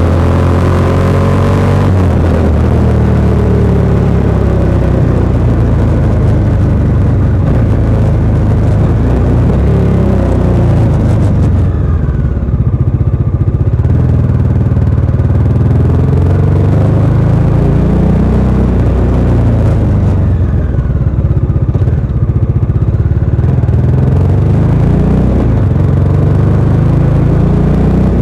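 Bajaj Dominar 400 UG's single-cylinder engine running through its stock exhaust while riding, the pitch rising and falling as the throttle opens and closes. The revs drop and climb again about twelve seconds in and again around twenty seconds in.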